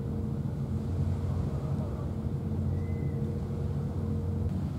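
A steady low mechanical drone of an engine running, with a faint steady hum above it that stops near the end.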